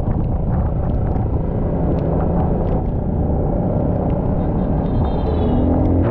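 Honda 150cc dirt bike's engine running under way, with a steady low rumble of engine, road and wind on the camera microphone. A short pitched tone sounds near the end.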